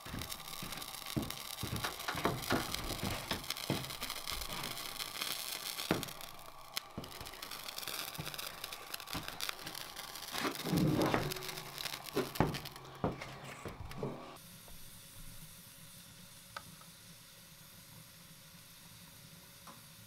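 Irregular clicks, crackles and rustling close by while a fire is lit with a match. After about fourteen seconds it gives way to a quieter, steady hiss.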